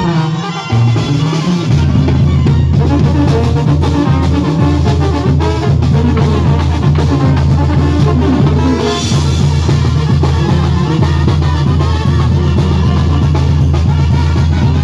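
A live band playing loud music, with brass horns over a drum kit and a heavy bass line.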